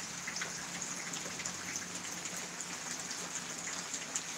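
Faint, steady outdoor background: an even hiss with scattered small ticks and a faint low hum underneath.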